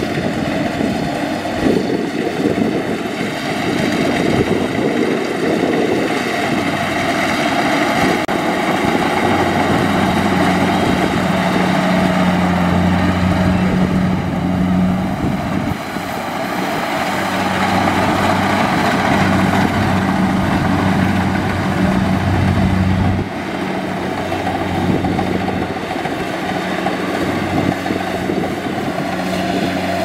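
Kubota combine harvester's diesel engine and machinery running steadily, with a low steady hum that comes in about a third of the way through.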